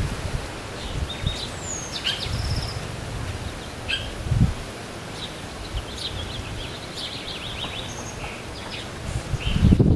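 Several small birds chirping and calling, with short scattered chirps, a quick falling whistle and a brief trill, and a run of rapid chirps later on. Under them runs a low rumble of microphone noise, swelling into low thumps near the end.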